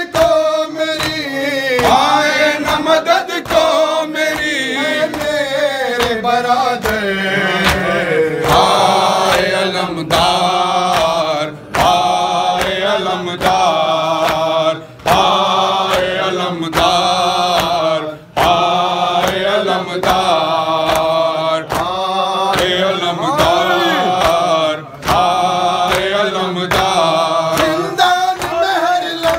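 A noha, a Shia lament, chanted by male reciters in long melodic phrases with short breaks, over a steady rhythm of sharp beats.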